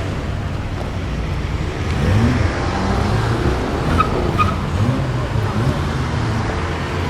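Car engine running with a low rumble, revved up and back down about two seconds in and again around five seconds in, as cars pull away. Two short high chirps come near the middle.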